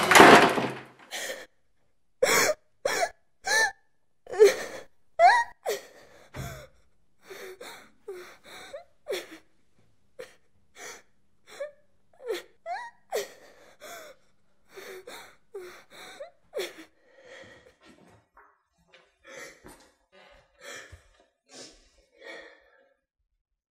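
A loud noise dies away in the first second, then a young girl sobs with short gasping breaths, about one or two a second, some with a brief rise in voice. The sobs grow fainter toward the end.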